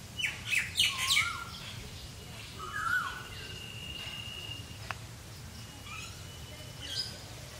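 Birds calling: a quick run of chirps and whistles in the first second or so, another near three seconds, and a thin held whistle between them, over a low steady rumble. A single sharp tick about five seconds in.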